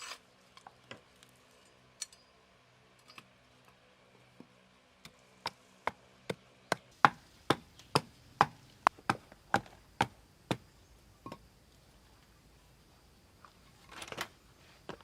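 A blade chopping on wood: a few light taps, then a steady run of about a dozen sharp chops, roughly two a second, in the middle. A brief rustle comes near the end.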